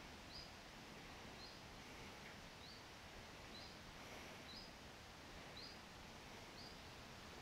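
Faint outdoor quiet with a bird repeating one short, high, slightly rising note about once a second.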